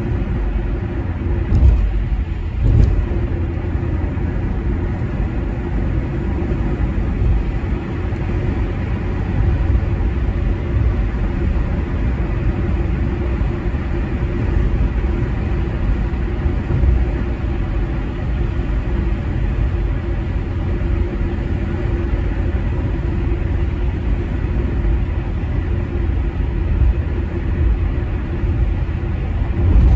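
Steady low rumble of a car travelling at highway speed, mostly tyre and road noise with the engine under it, heard from inside the car. Two brief thumps come about two and three seconds in.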